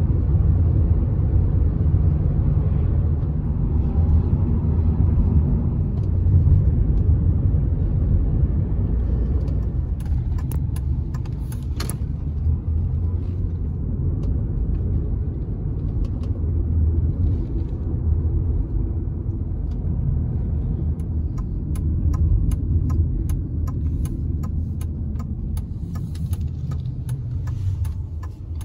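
Road noise inside a moving car: a steady low rumble of engine and tyres. Scattered sharp ticks and crackles come in during the second half.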